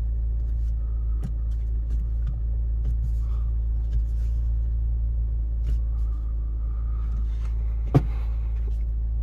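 Steady low rumble of a Mitsubishi Lancer idling, heard from inside the cabin, with faint clicks as the rear-view mirror is handled and one sharp knock about eight seconds in.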